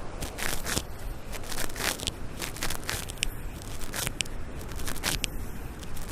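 Footsteps crunching on beach sand at a walking pace, about two steps a second, over a steady low background rumble.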